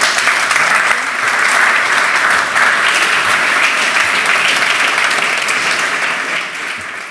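Audience applauding steadily, thinning out a little near the end.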